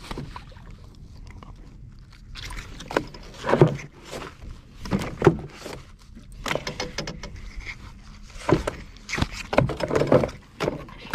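Irregular knocks, clicks and scuffs from handling a small hooked shark in the boat while fishing pliers work at the hook in its mouth, in several clusters with the loudest knocks a few seconds in.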